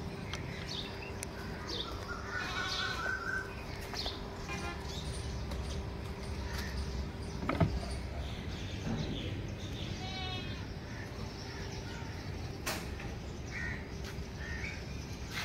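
Goats bleating about three times, quavering calls, over a faint steady hum, with two sharp knocks, the first about halfway through.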